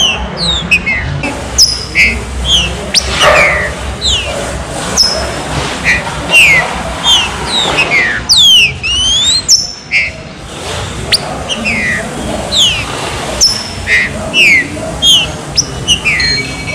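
Green-winged saltator (trinca-ferro) calling: a rapid series of short, sharp, down-slurred whistled notes, about two a second, with a pair of longer crossing glides about halfway through.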